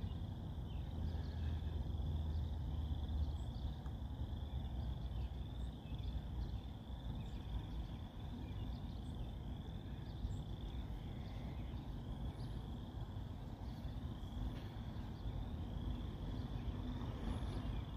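Outdoor ambience: a steady high-pitched chorus of quickly repeated chirping calls over a continuous low rumble, with a few faint higher chirps scattered through.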